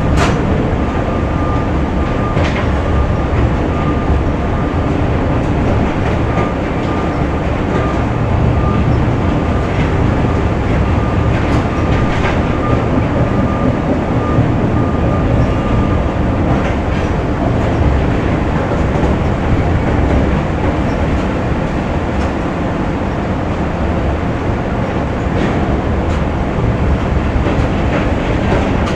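Factory machinery running: a loud, steady heavy rumble with occasional metallic clanks, and a faint high whine through about the first half.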